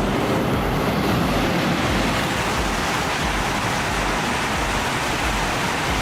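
Steady, loud rushing noise of a high-speed train running at speed, with a low pulse repeating about twice a second beneath it.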